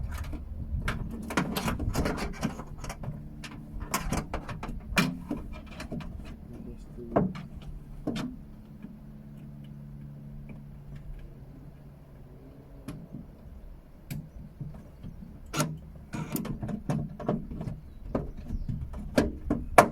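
Plastic clicks, knocks and rattles as the new tailgate handle unit with its reverse camera is fed into the Skoda Octavia's tailgate and pushed into place, over a steady low hum. The clicks come thick in the first half, thin out in the middle and pick up again near the end.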